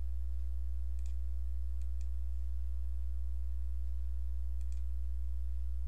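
A few soft computer mouse clicks, in quick pairs about a second in, near two seconds and past four and a half seconds, over a steady low electrical hum.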